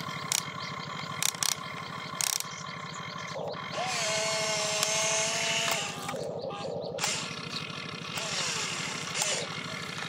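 Toy RC excavator's electric motors and gears whirring as it digs and swings its boom, with a steady higher whine for about two seconds in the middle. A few sharp clicks come in the first two seconds.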